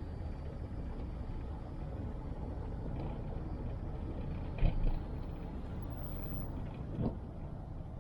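Car driving on a mountain road: a steady low rumble of tyres and engine, with two short thumps a little over halfway through and near the end.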